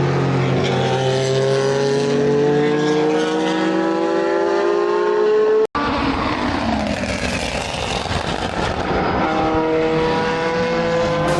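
Racing car engines at full throttle on a circuit: one engine note climbs steadily for several seconds. About six seconds in, the sound cuts out for an instant, then a car goes by with a falling sweep and another engine note climbs near the end.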